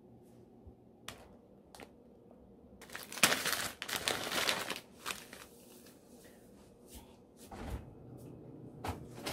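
Plastic food packaging and a paper grocery bag crinkling and rustling as groceries are pulled out, loudest about three to four and a half seconds in. A couple of light clicks come before it and a soft thump near the end.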